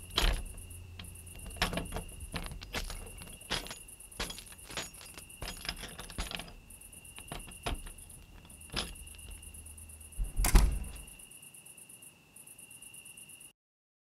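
Irregular footsteps with small clicks and knocks, over a faint steady high-pitched whine. A louder knock comes about ten and a half seconds in, and the sound cuts out near the end.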